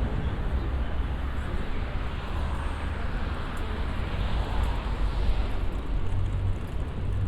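City street ambience: a steady low rumble of road traffic with a wash of background noise.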